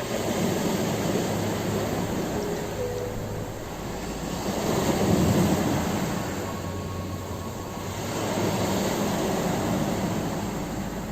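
Ocean waves breaking and washing onto a shore, the surf rising and falling in slow surges, loudest about five seconds in.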